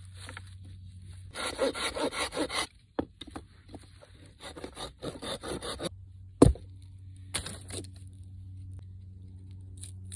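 A knife shaving and carving a wooden stick in runs of quick scraping strokes, about six a second. One sharp knock of wood, the loudest sound, comes about six and a half seconds in, followed by a further scrape.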